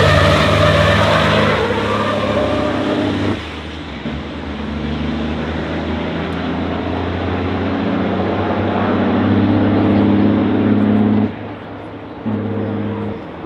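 Engines of racing trucks running on track during a show run, with a steady stacked engine note. The sound is loudest at first and drops off sharply about three seconds in and again near the end.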